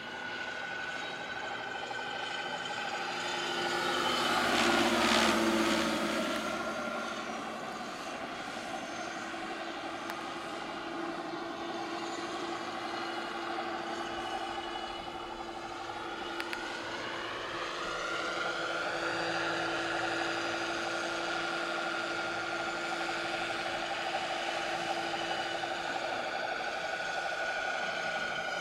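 Large radio-controlled scale model Mil Mi-8 helicopter in flight: a steady whine of its motor and rotors, swelling and dropping in pitch as it passes close about five seconds in, then rising in pitch again a few seconds past the halfway point.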